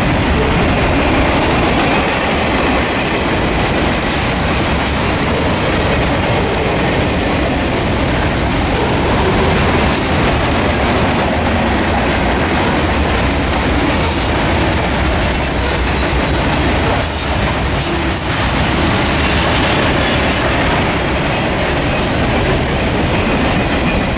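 Freight train cars (covered hoppers, tank cars and boxcars) rolling past close by: a steady rumble and clatter of wheels on rail. Brief high-pitched wheel squeals come now and then, most around the middle of the pass.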